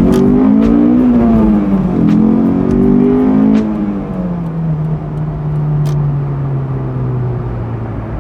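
Honda S2000's 2.2 L F22C1 four-cylinder engine pulling hard under acceleration, revs climbing, dropping at an upshift between about one and two seconds in, then climbing again. A little past three and a half seconds in the driver lifts off and the engine settles to a steady, slowly falling cruise note.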